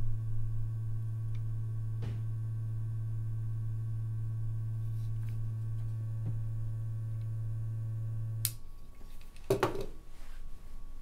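Vintage ultraviolet Mineralight lamp's power supply humming steadily, a low hum with overtones, while the UV tube is lit; it cuts off abruptly about eight and a half seconds in when the lamp is switched off. A few light handling knocks follow near the end.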